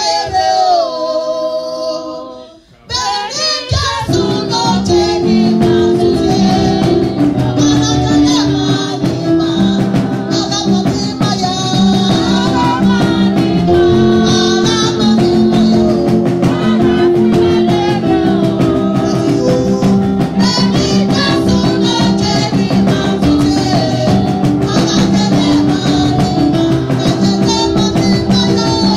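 A woman singing a praise song into a handheld microphone. A short sung line opens with no accompaniment, and about three seconds in, backing music with a steady beat comes in under her voice.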